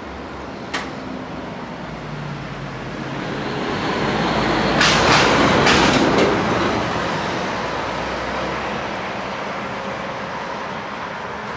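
Train running on the rails: a rumble that swells to its loudest about five seconds in, with a few sharp clacks at the peak, then eases off.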